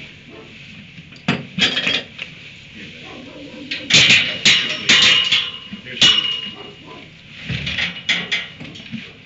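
Steel pipe corral panel clanking and rattling: a run of sharp metallic knocks, several of them ringing on briefly, the loudest clustered from about four seconds in.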